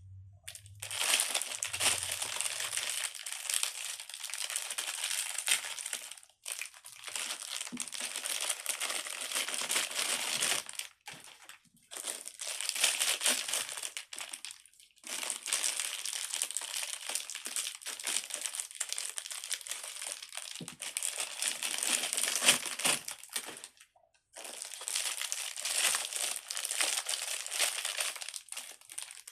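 Crinkling and crackling of plastic as stress balls are handled, in long stretches broken by several short pauses.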